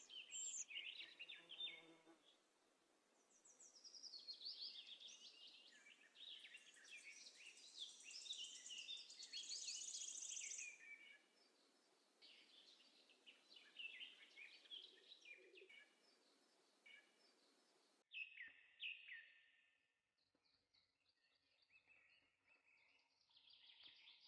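Faint bird chirps and calls that come and go in short runs, over a low background hiss that drops away about eighteen seconds in.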